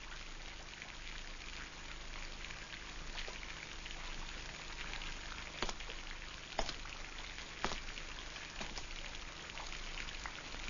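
Steady hiss with faint crackling, and a few sharp clicks about six to eight seconds in.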